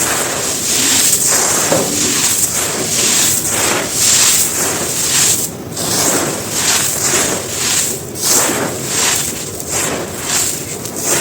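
Dry, gritty chunks of cement being crumbled and crushed, a dense crunching and crackling that swells and eases about once a second.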